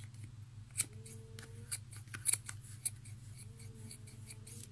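Scissors snipping through yarn wound on a plastic pom-pom maker: about half a dozen sharp, irregularly spaced snips.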